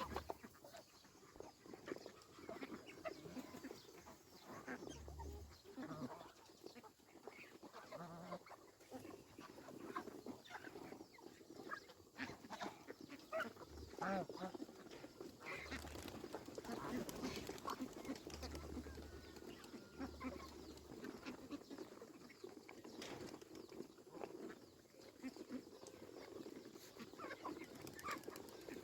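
A mixed flock of domestic geese and ducks calling over one another, a steady run of short, overlapping calls.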